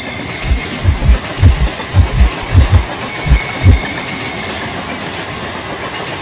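Electric multiple-unit commuter train passing close by: its wheels clack over the rail joints in heavy paired thumps for about the first four seconds, then it settles into a steady rumble. A faint high whine runs throughout.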